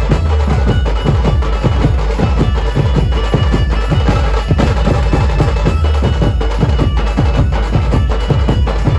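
A dhumal band's drum section playing loud, fast drumming: big stick-beaten drums and bass drums pounding a dense, driving rhythm.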